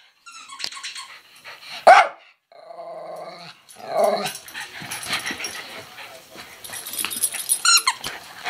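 Jack Russell terrier barking during play: a loud sharp bark about two seconds in, a held growling sound of about a second, another bark around four seconds, then scuffling and smaller yips.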